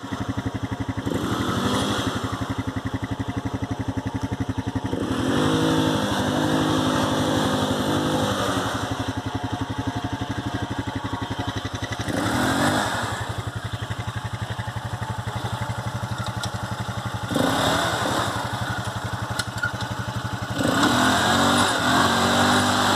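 Sport ATV engine idling and revved about five times, twice held high for a few seconds, as the quad sits stuck in clay mud.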